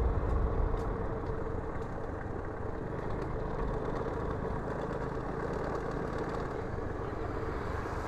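Motorcycle engine running steadily on the move, with wind and road noise.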